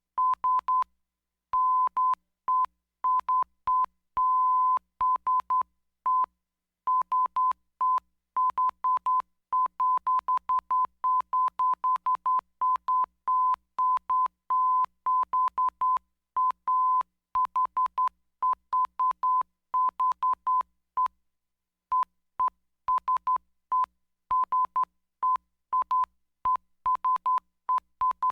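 Morse code sent as a steady single-pitch beep, keyed on and off in short dots and longer dashes, grouped with brief pauses and a longer gap a little past two-thirds of the way through.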